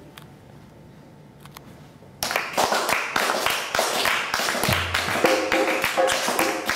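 Quiet room until about two seconds in, then a traditional Scottish tune starts up with the players clapping their hands in a fast, steady rhythm over a melody, and a low bass note joins a little later.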